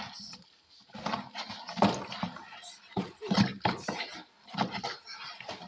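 Wooden stick stirring a lumpy mix of caustic soda, salt and bleach in a plastic bucket: irregular knocks and scrapes against the bucket wall as it swirls the liquid, about two strokes a second. The lumps are not yet dissolved.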